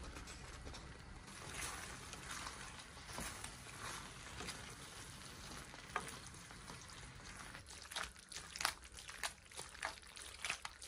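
Short pasta and thick meat ragù being stirred together in a pan with a spoon: wet squelching and slopping, with sharper knocks of the spoon against the pan in the last few seconds.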